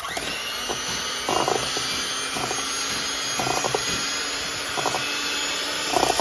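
Electric hand mixer switching on and running steadily at speed, its beaters churning butter, sugar, egg and flour in a stainless steel bowl, with a few brief louder moments every second or so.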